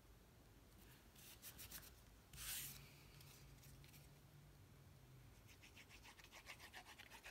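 Faint handling of cardstock paper: light scratchy rubbing, with a brief louder rustle about two and a half seconds in. Near the end, a run of quick scratchy strokes as the fine tip of a glue bottle is rubbed across a small cardstock piece, spreading glue.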